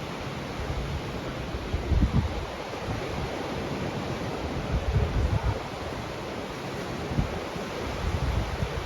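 Steady rushing noise of wind and surf, with gusts buffeting the microphone in short low thumps about four times.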